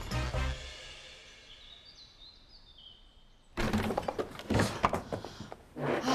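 Comedic background music fading out, then from about three and a half seconds in a sudden run of thumps and knocks as someone bursts into a small room.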